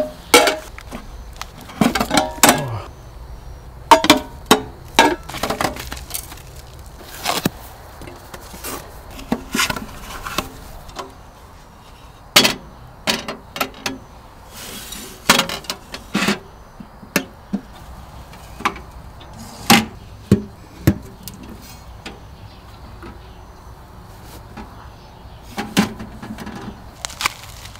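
Parts of a Pomoly Baker Oven hot tent stove being unpacked and handled: irregular clinks, knocks and rattles of metal pieces, with a few longer scraping or rustling sounds in the middle.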